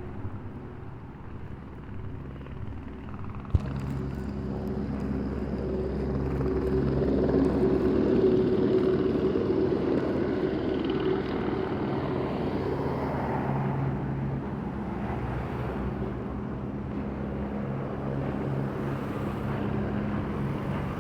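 Motor vehicle engine running close by with a steady low hum, growing louder up to about eight seconds in and then easing off a little. A single sharp click about three and a half seconds in.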